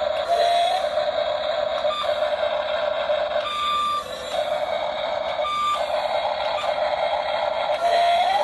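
Small electric motors and gearboxes of a radio-controlled toy excavator whining steadily, with a few short higher-pitched whines and two brief rises in pitch as its functions are driven.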